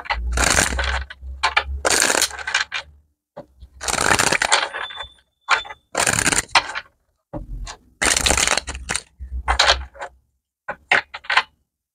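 Tarot cards being shuffled by hand: about six short, crisp bursts of card rustling and slapping, several with a low thud underneath.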